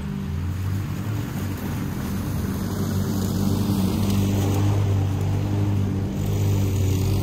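Gas walk-behind lawn mower engine running steadily under load while it is pushed across the grass, growing louder as it comes near.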